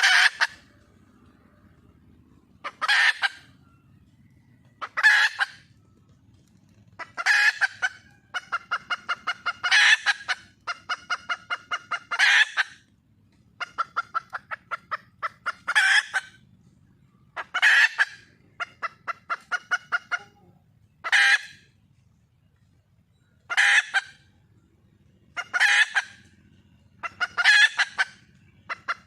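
Female red junglefowl (wild hen) calling for a mate: a loud call about every two seconds, with runs of quick repeated clucks between some of the calls.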